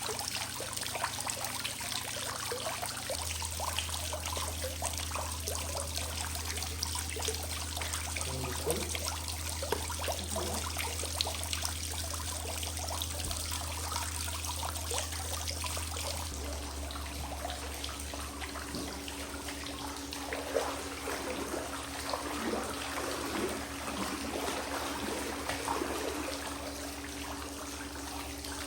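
Water trickling and splashing in a garden water feature, as it is refilled, over a steady low hum.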